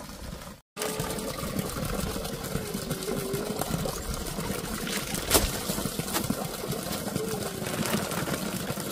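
Crinkling of a thin plastic bag being opened and filled, with a few sharp crackles, over a steady background hum of a small engine running.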